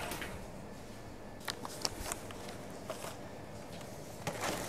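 Plastic-wrapped bundles of firewood being handled and set into a wire shopping cart: the wrap crinkles and the wood and cart give a few light knocks and clicks, with a short rustle near the end.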